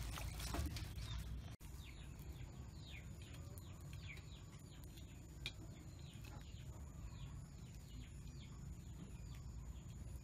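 Hands swishing in a bowl of water for about a second and a half, then small birds chirping: a long run of short falling chirps over a steady faint high whine.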